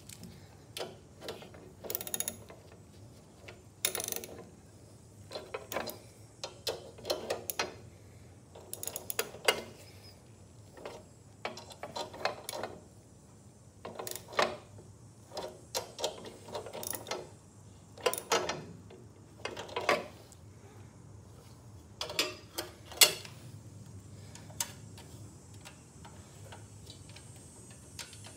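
Socket ratchet clicking in short, irregular bursts while the snow thrower's 10 mm carburetor mounting nuts are tightened. The clicking stops about four seconds before the end.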